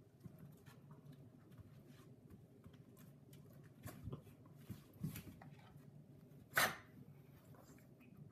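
A Chinese crested and a small long-haired dog play-fighting, with soft scuffling and snuffling noises. One short, sharp dog noise comes about two-thirds of the way through.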